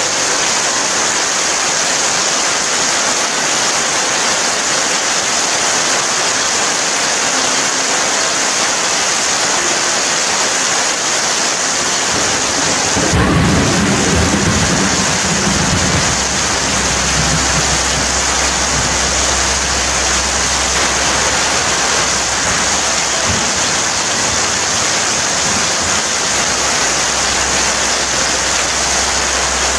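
Steady rain falling, with a roll of thunder about thirteen seconds in that fades to a low rumble lasting to the end.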